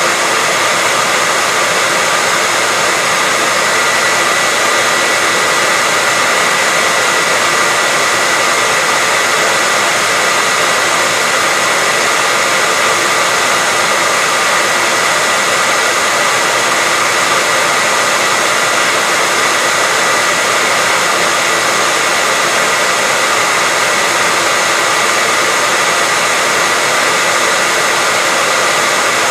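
Hair dryer running steadily: an even airy rush with a constant whine in it and no change in speed.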